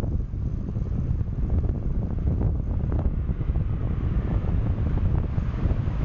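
Wind buffeting the microphone of a bicycle-mounted camera while riding, a steady low rumble with a fluttering texture.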